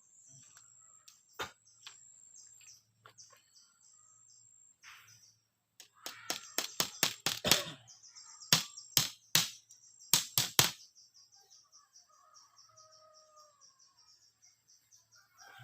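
A quick run of about a dozen loud, sharp knocks in the middle, with a single knock earlier, over steady high-pitched chirping in the background.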